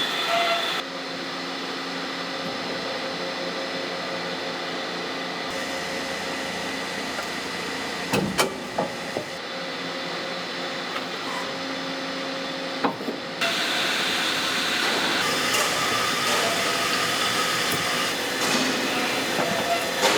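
Bearing-ring forging plant machinery running steadily, with a few sharp metal clanks around the middle; the background noise changes abruptly several times.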